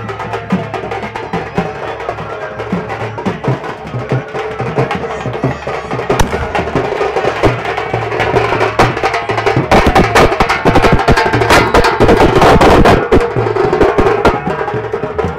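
Rhythmic drumming with a steady held tone over it. Starting about ten seconds in and lasting about three seconds comes a dense run of sharp cracks, the loudest part.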